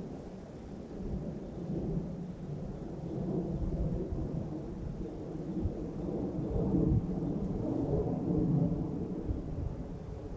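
Distant thunder: a low rolling rumble that swells through the middle of the stretch and eases off toward the end.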